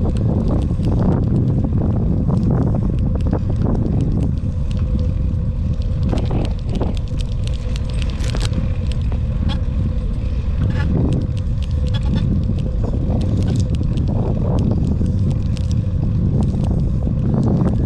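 Bicycle riding over wet brick pavement, heard through a handlebar-mounted camera: a steady low rumble of road vibration and wind with frequent small rattles and clicks.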